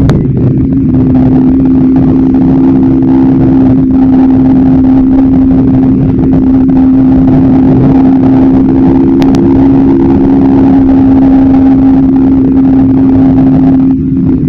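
Bajaj Pulsar NS160's single-cylinder engine, fitted with an aftermarket air filter, running at a steady speed on the move, with a constant pitch.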